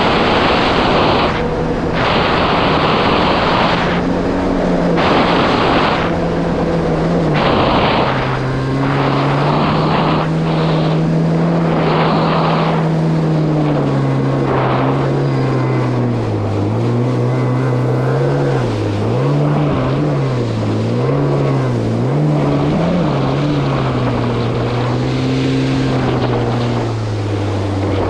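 Yamaha GP1800R SVHO personal watercraft's supercharged four-cylinder engine running under way on choppy sea. Its pitch drops twice, then wavers up and down with the throttle past the middle. In the first half, whooshes of spray and wind come every second or two.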